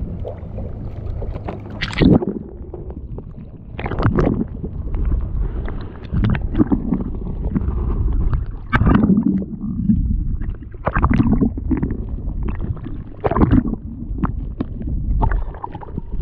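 Water sloshing and slapping against a small fishing boat's hull over a steady low rumble, with louder irregular splashes about every two seconds.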